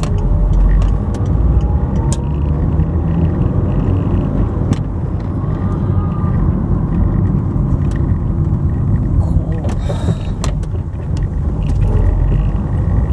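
Car driving, heard from inside the cabin: a steady low engine and road rumble, with a few sharp clicks.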